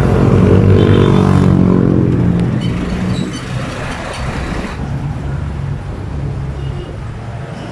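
A large motor vehicle's engine passing close on the road, loud over the first three seconds with its note falling slightly as it goes by, then fading into steady road traffic.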